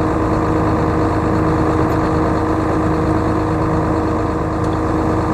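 Farm tractor engine running steadily at an even speed, with a steady whine over the engine sound.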